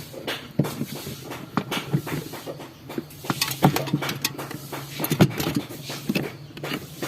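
Plastic refrigerator interior parts being handled and fitted back into place: irregular clicks, taps and knocks, over a low steady hum.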